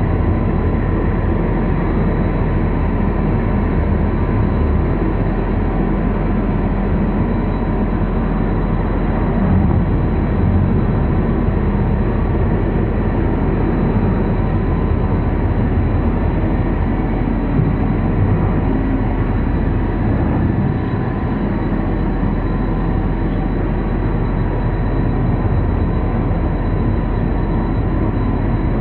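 Dark ambient drone: a dense, steady low rumble with faint steady high tones held above it.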